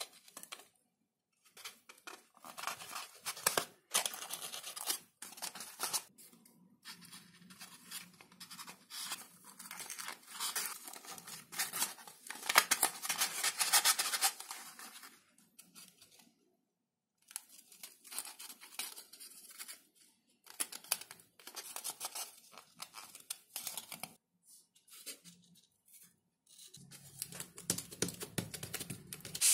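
Masking tape being pulled and torn and pressed onto XPS (Depron) foam parts, with the foam rubbing under the hands: irregular bursts of tearing and scratching with short pauses, loudest about halfway through.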